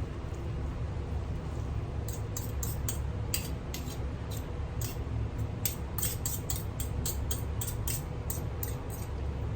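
Kitchen utensil clinking and scraping against a pan or dish in quick, irregular strokes from about two seconds in, over a steady low rumble, as stir-fried chow mein noodles are mixed or served.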